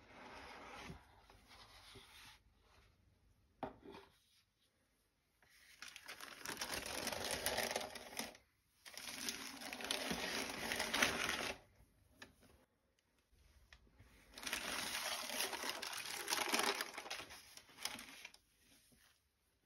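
Cardboard shoebox lid rubbing and sliding off, followed by tissue paper crinkling loudly in three long bursts as it is folded back from the sneaker.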